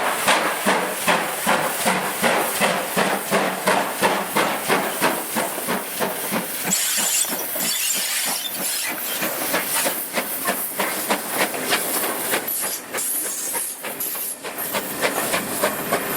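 Train running on a heritage line, with a steady hiss and a rapid run of sharp rhythmic beats, about three a second, that grow less even about halfway through.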